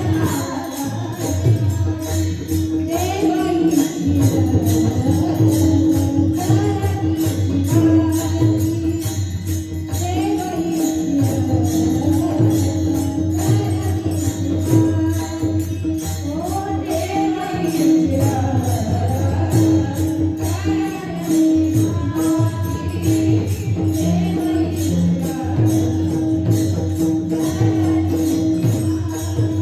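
Devotional kirtan singing accompanied by small hand cymbals (taal) struck in a quick, even rhythm, over a steady held note.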